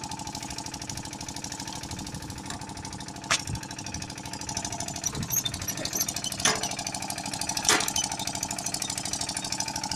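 A small motor or engine runs steadily with a fast pulsing beat. Three sharp metal knocks come about three, six and a half and seven and a half seconds in, as the facing tool is handled and lifted off the butt-fusion machine's guide rods.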